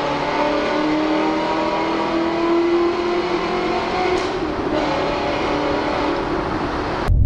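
Car engine and exhaust heard from inside the cabin while driving through a road tunnel, the revs climbing slowly for about three seconds and then holding steady. The sound cuts off suddenly near the end.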